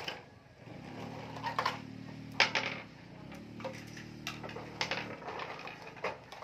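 Hard plastic toy trucks and glass marbles knocking and clicking on wooden floorboards, a few scattered sharp clicks over a faint low steady hum.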